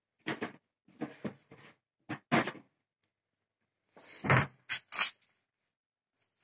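Short knocks and rustles of hands handling things on a worktop and parchment paper while flour is spread out for rolling pastry dough. The loudest is a dull thump about four seconds in, followed closely by two sharp knocks.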